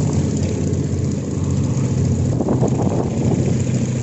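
Piston engine and propeller of a single-engine aerobatic plane running steadily at low power as the plane taxis on grass.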